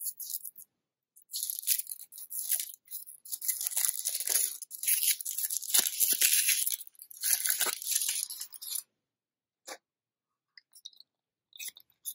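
Thin foil wrapper of a Kinder Surprise chocolate egg being peeled off, with about seven seconds of busy crinkling and tearing. Near the end come a few short, light cracks and clicks as the chocolate shell is split open.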